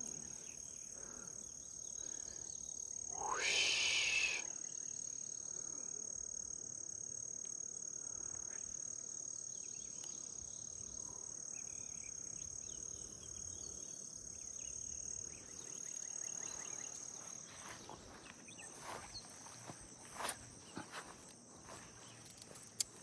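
Steady high-pitched insect trill, with a louder sound about a second long a few seconds in that rises in pitch at its start. A few sharp clicks come near the end.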